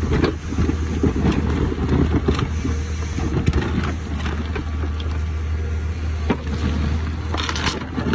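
Excavator's diesel engine running steadily under load as it works a rock ripper arm, with scattered knocks and rough grinding noise throughout.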